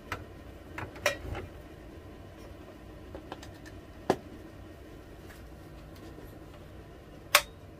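Light clicks and knocks of small items being handled on a workbench, then one sharp click near the end as the hot plate's rocker power switch is flipped.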